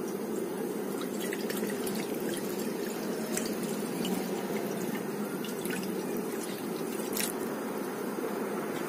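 Chicken broth poured from a stainless steel jug into a wok, splashing and dripping, with a few sharp drip ticks in the first half and one more near the end. A steady low hum runs underneath.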